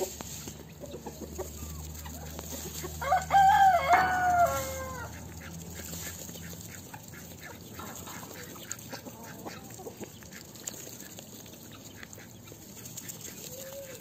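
A rooster crows once, about three seconds in: a loud, drawn-out call of roughly two seconds that falls off at the end. Hens cluck softly around it, with scattered faint clicks.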